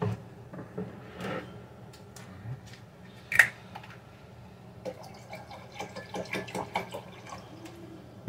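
Apple juice poured out of a plastic jug into a mug, with drips and splashes, one sharp knock about three and a half seconds in, then a run of small clicks and crackles from the plastic jug being handled.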